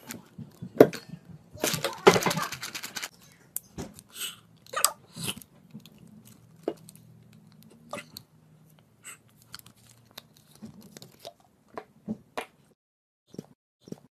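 A plastic squeeze bottle of PVA glue is handled over a stainless steel bowl: scattered clicks and taps as the cap is worked and the bottle squeezed, with a denser rustle about two seconds in.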